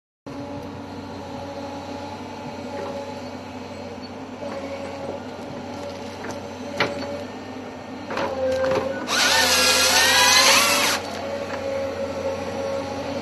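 Volvo excavator's diesel engine and hydraulics running steadily while the Log Max 7000 harvester head grips a standing tree. About nine seconds in, the head's hydraulic chain saw cuts through the trunk for about two seconds: a loud, high whine that wavers in pitch.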